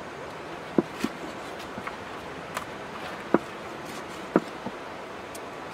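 A heavy cleaver chopping through raw octopus onto a wooden chopping block: a handful of sharp, separate chops at uneven intervals, two close together about a second in and others near the middle and end.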